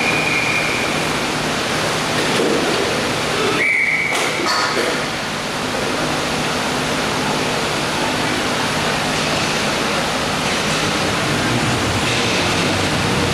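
Steady loud rushing noise of a roller hockey rink. Over it come two short, high whistle tones, one at the very start and one about four seconds in, plausibly a referee's whistle.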